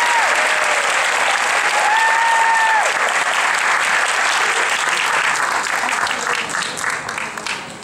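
Audience applauding, with a voice cheering in long calls near the start and again about two seconds in; the applause thins to a few separate claps and dies away near the end.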